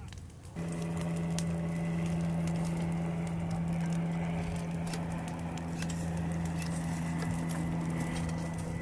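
Forest fire burning at the base of a tree, crackling with many small sharp pops over a steady low mechanical hum that starts abruptly about half a second in.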